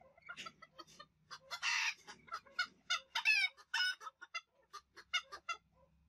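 Vietnamese bantam chickens clucking in rapid short notes, with a few louder, longer calls around the middle.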